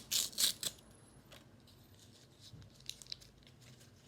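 Plastic toy packaging crinkling and rustling as it is handled, loudest in the first second, then only a few faint rustles and clicks.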